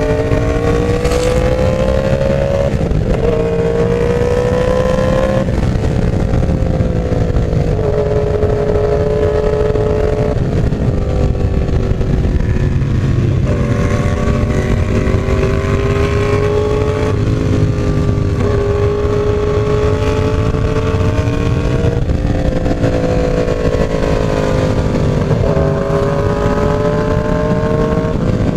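Yamaha YZF-R1's inline-four engine under way, its pitch climbing steadily through each gear and dropping sharply at each upshift, about seven times.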